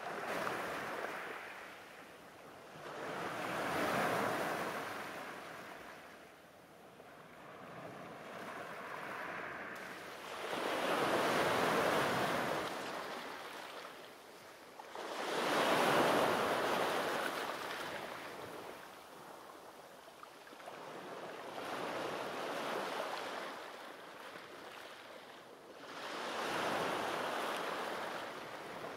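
Small sea waves breaking and washing over a pebble beach, the surf swelling and ebbing in about seven surges, one every four to five seconds.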